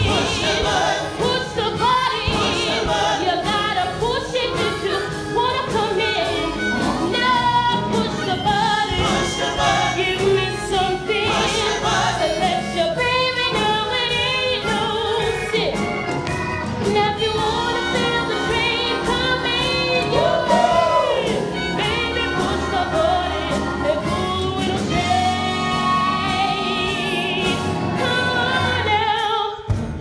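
Musical-theatre song number: a woman sings lead, with a chorus of voices and instrumental accompaniment behind her.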